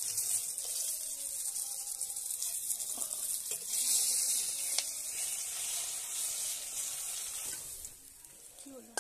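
Koi fish frying in hot mustard oil in an iron karahi, a steady sizzle, loudest about four seconds in, with two or three light clicks of the metal spatula as the fried fish are lifted out. The sizzle fades near the end.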